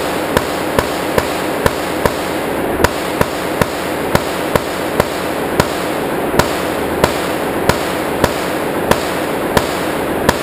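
Rapid, steady semi-automatic gunfire in an indoor range, about two shots a second for the whole stretch, over a constant wash of noise.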